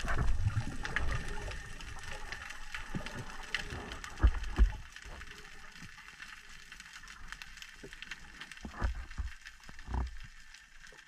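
Underwater sound picked up by a camera on a speargun: a steady sprinkle of faint clicks and crackles over low rumbles of water moving past the housing. Two dull thumps come close together about four seconds in.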